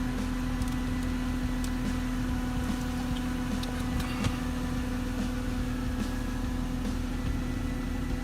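Mercedes-Benz C230's M272 V6 engine idling steadily with a newly fitted belt tensioner, two guide pulleys and fan. It runs quietly, with no abnormal noise from the belt drive.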